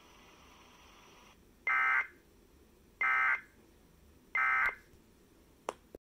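Three short identical bursts of Emergency Alert System end-of-message data tones, the buzzy digital SAME code, about a second and a third apart, signalling the end of the alert broadcast. A sharp click comes near the end.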